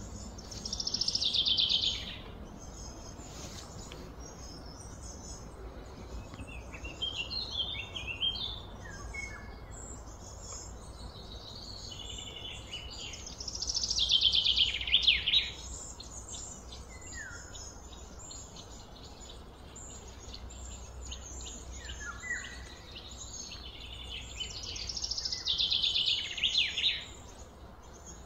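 Birds singing outdoors: a loud, rapid, falling song phrase comes three times, about twelve seconds apart, with scattered chirps between, over a steady low background hum.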